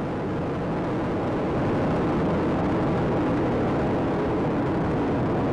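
Space Shuttle Atlantis climbing under its three main engines and two solid rocket boosters: a steady, deep rocket roar, slightly louder from about a second and a half in.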